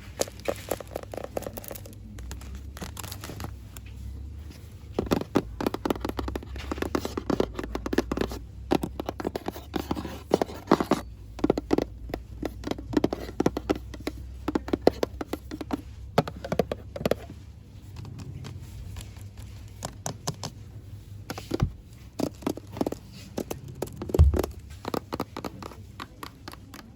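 Fast, irregular scratching, tapping and crinkling of small shop items and their plastic packaging, close to the microphone, with a single dull thump near the end.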